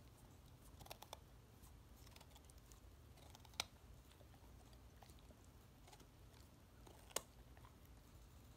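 Pit bull chewing a raw carrot: faint, scattered crunches and clicks of teeth on carrot, with a small cluster about a second in and two sharp, loud cracks as she bites through it, one about three and a half seconds in and one a few seconds later.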